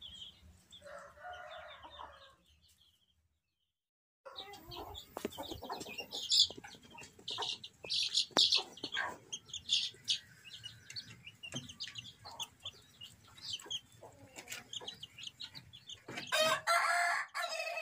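Chickens: a hen calls once about a second in. After a short silent gap, young chicks peep in many short, high chirps, with small taps among them. Near the end comes a louder, longer chicken call.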